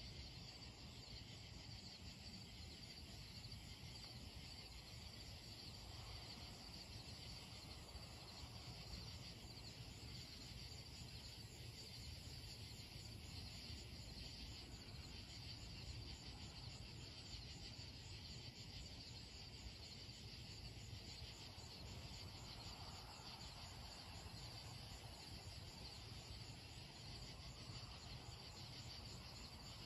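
Faint, steady chorus of night insects, crickets chirping in a fast, even pulse, with a faint low rumble underneath.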